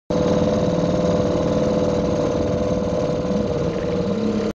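Small boat's motor running steadily under way, with a strong steady tone that drifts slightly lower; it cuts off abruptly near the end.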